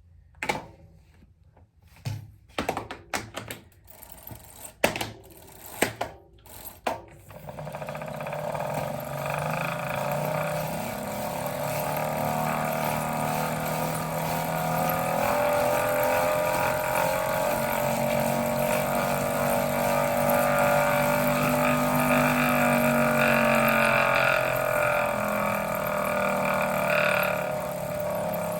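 A few clicks and knocks, then a Wahoo Kickr Snap wheel-on bike trainer running from about seven seconds in. Its whine rises slowly in pitch and eases back down near the end.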